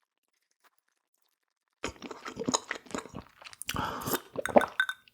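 Close-miked chewing of food, with crisp crunches and wet mouth noises in an irregular run. It starts about two seconds in, after near silence.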